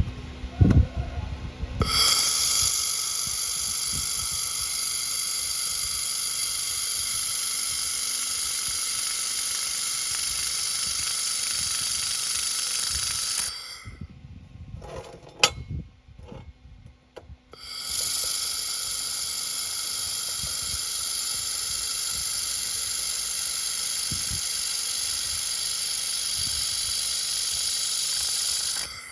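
Laser welder running in two long, steady hissing passes of about eleven seconds each, with a short break between them marked by a sharp click.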